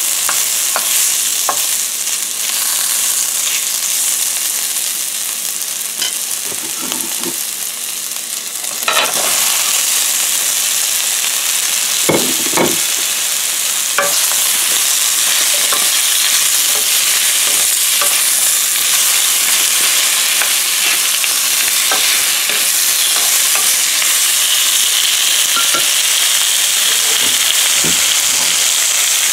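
Julienned ginger and sliced onions sizzling in hot oil in a stainless steel wok, with scattered scrapes and taps of a wooden spatula stirring them against the steel. The sizzle grows louder and denser about nine seconds in, as the sliced onions go into the pan.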